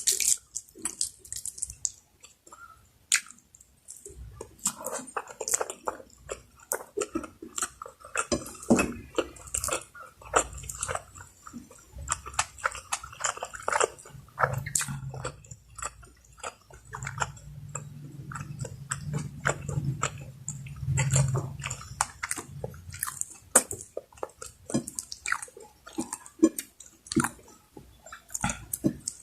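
Close-miked chewing of Bicol Express, a saucy pork dish: a steady run of wet mouth clicks, smacks and bites. A low hum sits under it from about the middle of the stretch for several seconds.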